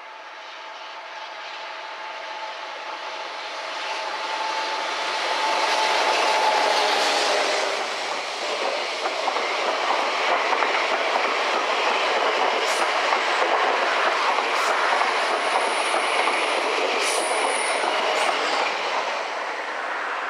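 Elipsos Talgo trainset hauled by an SNCF BB 7200 electric locomotive passing through a station. A steady whine comes first as it approaches, then the coaches roll past loudly with clicks over the rail joints and a brief high wheel squeal near the end.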